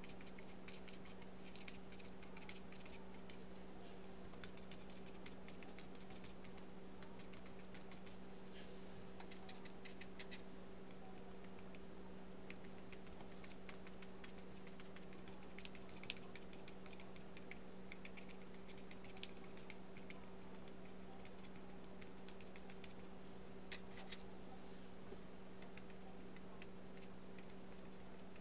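Stiff bristle brush dabbing and brushing gouache onto paper: faint, irregular small taps and scratches, a few a little louder, over a steady low electrical hum.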